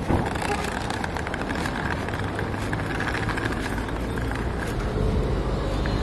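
Road traffic and a vehicle engine running nearby, a steady low hum, with a sharp knock right at the start and light clicking on top.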